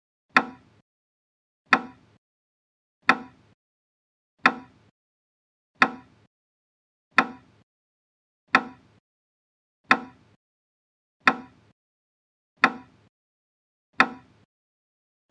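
A single pitched percussion hit, repeated evenly about every second and a half, each one sharp and quickly dying away. It is the pacing beat for kapalbhati breathing, one forceful exhale per hit.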